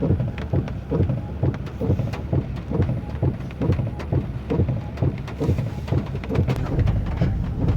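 Rain hitting a lifted 4x4 Chevy pickup, heard as many irregular sharp taps, over the steady low rumble of the truck running.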